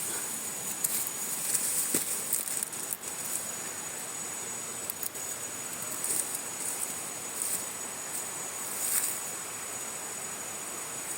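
Steady high-pitched buzzing of insects over a soft outdoor hiss, with a few brief rustles in the vegetation.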